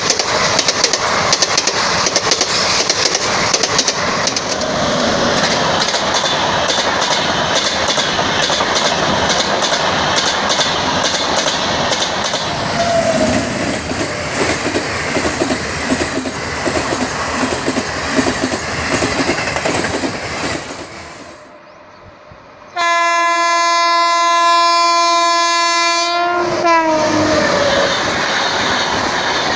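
Indian Railways train running on the track, with rapid clickety-clack of wheels over rail joints under a steady rumble. After a short break, a locomotive air horn sounds one long steady blast of about three and a half seconds that bends down in pitch as it ends, and the running noise returns.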